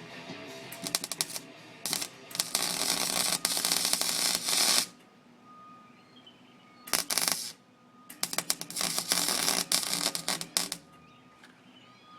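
Arc welding on steel: the arc crackles and sputters in three bursts, the first about four seconds long, then a short half-second one, then one of about two and a half seconds, with short pauses between.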